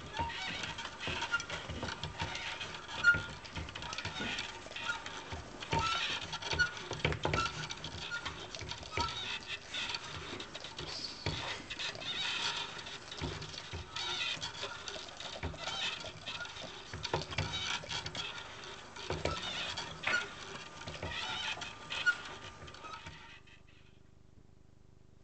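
Hand-cranked kinetic wire sculpture running: chestnuts and acorns on strings knock together and the wire frame rattles as the crank turns, giving an irregular clatter of small taps and clicks. It stops about a second and a half before the end.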